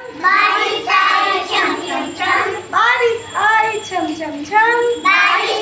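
Children's high-pitched voices singing or chanting a nursery rhyme together, continuously.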